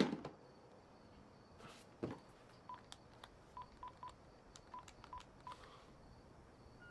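Telephone keypad beeps as a number is dialled: seven short beeps at one pitch, each with a soft click of the key, coming in uneven bunches over about three seconds. A brief steady tone follows near the end.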